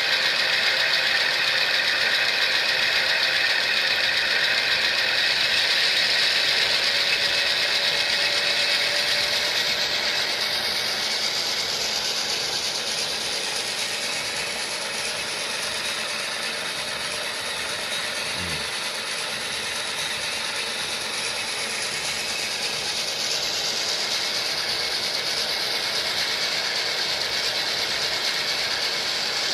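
Sound-decoder diesel prime-mover sound from HO scale model locomotives notched up to high throttle, played through small onboard speakers as a steady, very loud noisy rumble. The MTH C44-9W (Dash 9) with TCS speakers dominates over the ZIMO-equipped ES44AC GEVOs.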